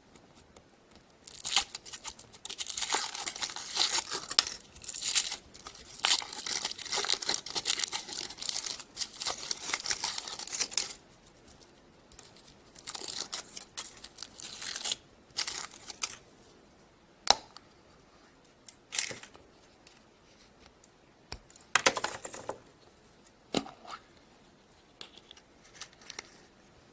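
The wrapping of a surprise egg being torn and crinkled open by hand, a dense crackle for about ten seconds, followed by scattered short rustles and clicks as the egg is handled.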